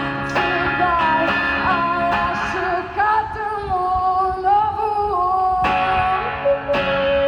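Live street performance of a song: a strummed guitar with a melodic line held and bent over it, in an instrumental stretch between sung verses.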